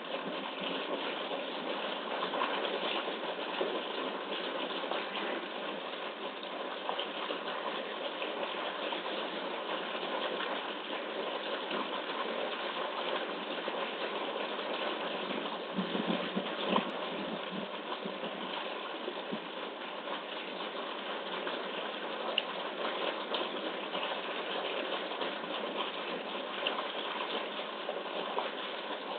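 Steady rush of running water churning a concrete pool, with the even noise of its pump. A brief low bump about sixteen seconds in.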